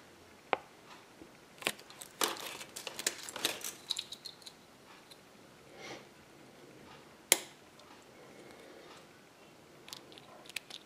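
Paper crinkling and small clicks as a folded paper toy leaflet and small plastic toy pieces are handled on a table. The crinkles cluster in the first half, and one sharp click comes about seven seconds in.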